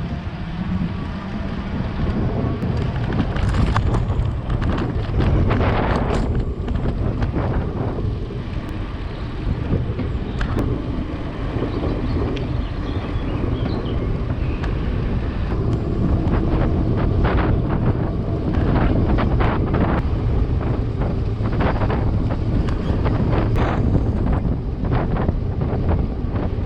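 Wind buffeting the microphone and tyre rumble while riding an electric mountain bike, with irregular knocks and rattles from the bike over bumps.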